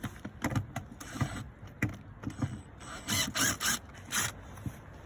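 Screwdriver undoing a screw under a car door armrest: irregular clicking and scraping turns, with a few louder scrapes near the end.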